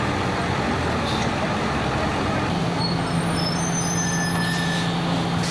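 Fire engine's motor and pump running steadily, with a steady low drone coming in about two and a half seconds in and a few short high whistling tones near the middle.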